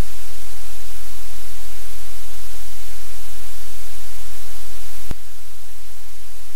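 Loud steady low electrical hum with hiss, from the livecam's audio line. A sharp click about five seconds in, where the recording cuts, after which the hum and hiss carry on slightly quieter.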